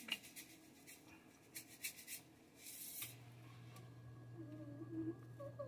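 Faint short scratches and rustles of hands working on glazed cookies on parchment paper. A low steady hum starts about three seconds in.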